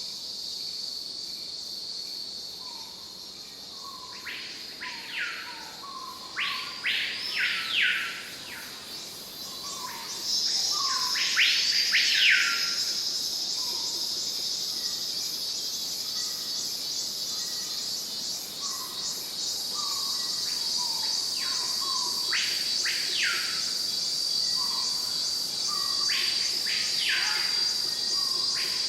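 Stock nature ambience: insects keep up a steady high drone that grows louder about ten seconds in. Birds repeat whistled calls that sweep up and back down in pitch, over short lower chirps.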